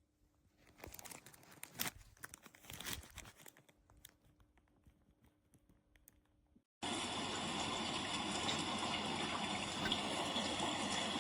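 Sunrise alarm clock's small speaker playing its built-in sounds: irregular crackling for a few seconds that dies away. About seven seconds in, after a brief dropout, a steady rushing noise starts abruptly.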